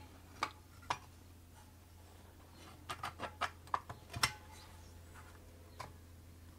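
Metal back cover of a Vulcan toy sewing machine being fitted onto its metal body, giving light clicks and taps: a few single clicks, then a quick cluster of them about three to four and a half seconds in.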